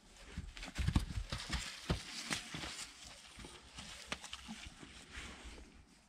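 Orlov trotter horse moving about on its hooves: irregular knocks and thuds, heaviest in the first two seconds, with scuffling and sharp clicks.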